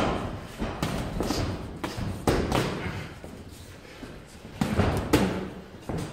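Irregular thuds from boxers sparring on a wooden ring floor: feet stepping and shuffling and gloves landing. The thuds come in clusters, with a quieter lull around the middle.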